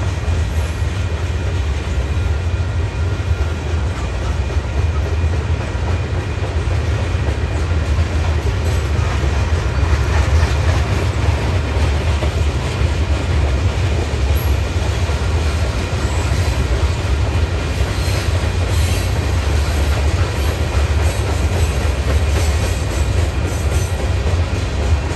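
Freight cars of a passing manifest train, mostly covered hoppers, rolling by with a steady heavy rumble and the rattle and clatter of steel wheels on the rails.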